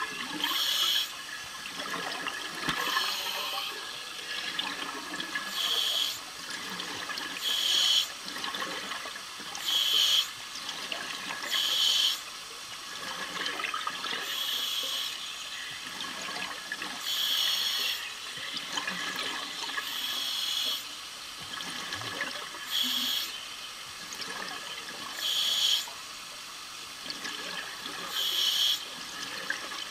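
Underwater bubbling from a diver's breathing: short gushes of exhaled air bubbling out every two to three seconds, over a steady hiss of water.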